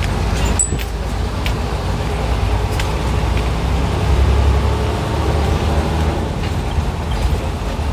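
A coach bus's diesel engine running as the bus moves slowly, heard from inside the cab: a steady low rumble that swells a little about four seconds in, with a few light clicks.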